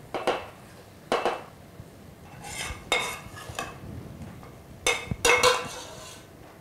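Stirring in a stainless steel pot: a metal ladle clinking and scraping against the pot's side in four short bouts.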